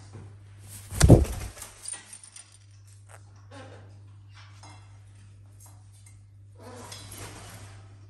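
A sudden loud thump about a second in, followed by scattered soft rustling and scuffling and another stretch of rustling near the end, over a faint steady low hum.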